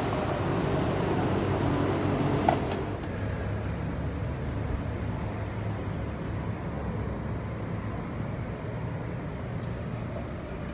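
Steady low rumble of outdoor background noise, with one sharp metallic clink about two and a half seconds in.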